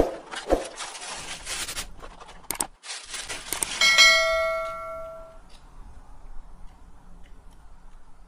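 Plastic packaging crinkling and rustling as a telescope lens is unwrapped, with a few sharp clicks, for about three and a half seconds. Then a bright bell chime rings out and fades over about a second and a half: a subscribe-button notification sound effect.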